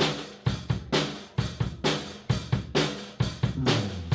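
Live drum kit playing a steady groove on snare, bass drum, hi-hat and cymbals, about two beats a second.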